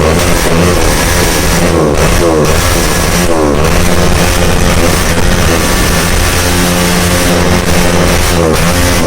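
Bajaj Pulsar 220F's single-cylinder engine through an SC Project aftermarket exhaust, loud and continuous, its pitch rising and falling again and again as the throttle is blipped and released.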